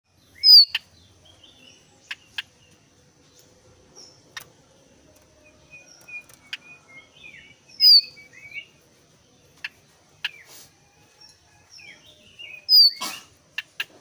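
A caged jongkangan coklat calling. Three loud, short, falling whistles come about seven and five seconds apart, with softer twittering phrases and sharp short ticks in between.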